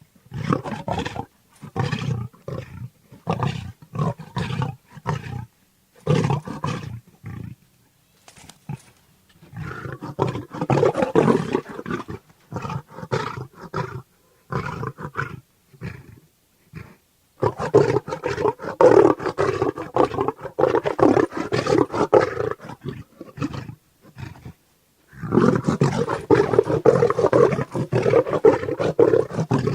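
Bengal tiger roaring: a quick run of short, chuffing calls for the first several seconds, then long, drawn-out roars with short pauses between them.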